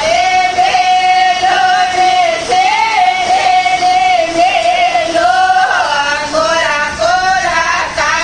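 A voice singing a Marwari jamai sa geet, a wedding song teasing the son-in-law, in long held notes that waver and glide.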